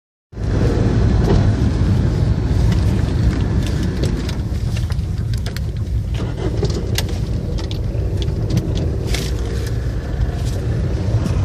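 Car driving on an unpaved gravel road, heard from inside the cabin: a steady low rumble of engine and tyres, with scattered sharp clicks and knocks throughout.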